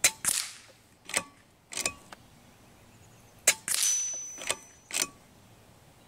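Kalibrgun Cricket 2 Tactical .22 PCP bullpup air rifle shooting: a series of sharp cracks and clicks, shots and the action being cycled, with the two loudest about three and a half seconds apart.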